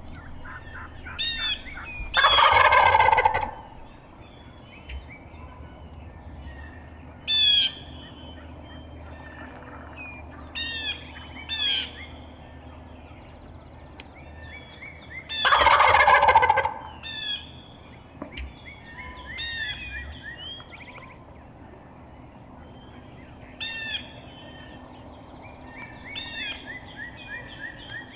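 Wild turkey gobbler gobbling loudly twice, about 13 seconds apart, each gobble a rattling call lasting over a second. Songbirds chirp repeatedly throughout.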